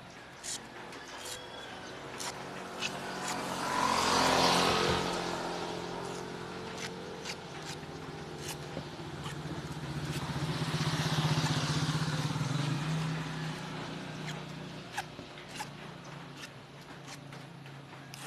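Two motor vehicles pass by one after the other, each swelling and fading over several seconds with a steady engine hum. Small light ticks and rustles come from copper magnet wire being twisted by hand.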